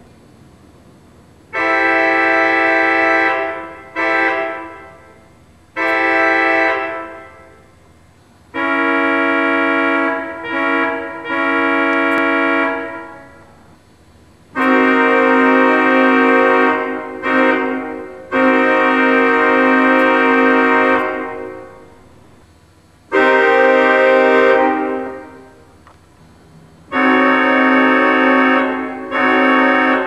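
Pipe organ sounding sustained multi-note chords voiced to imitate American diesel locomotive air horns such as the Nathan K5HL, in a series of about ten blasts from short toots to long holds of about five seconds. Each chord cuts off and dies away in the room's echo before the next.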